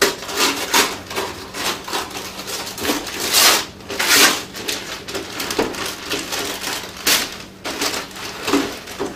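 Christmas wrapping paper being torn and crumpled off a gift box, in a run of quick rips and rustles, the loudest about three and a half and four seconds in, with another near seven seconds.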